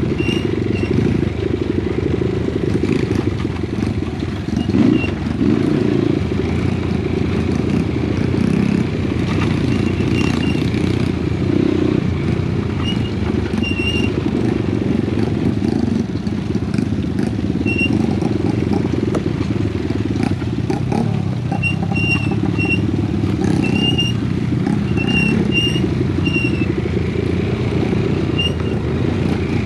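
Honda Wave 125, a small single-cylinder four-stroke underbone motorcycle set up for trail riding, running steadily under way along a dirt trail, with short high squeaks now and then.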